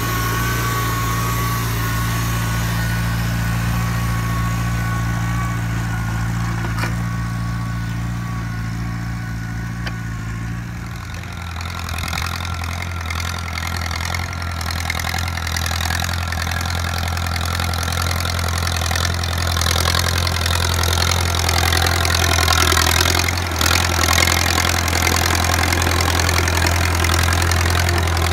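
Farmall Cub tractor's small four-cylinder engine running steadily under load while pulling a plow. The engine note shifts lower about 11 seconds in, and a steady hiss runs over it from then on.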